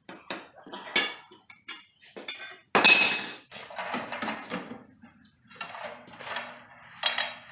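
Metal plumbing parts clinking and knocking as they are handled. About three seconds in comes a loud metallic clatter that rings for half a second.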